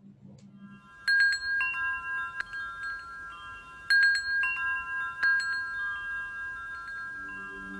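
Metal tube wind chimes struck in clusters about one second in and again around four and five seconds, their clear tones ringing on and slowly fading. A low steady tone comes in near the end.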